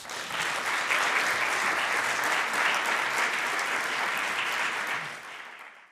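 Audience applauding: a steady wash of clapping that dies away near the end.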